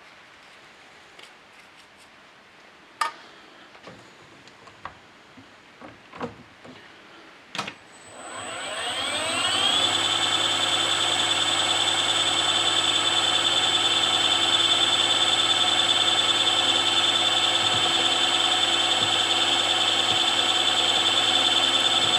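A few clicks and knocks of metal parts being handled. About eight seconds in, the milling machine's spindle motor starts: its whine rises in pitch for about two seconds, then runs steadily.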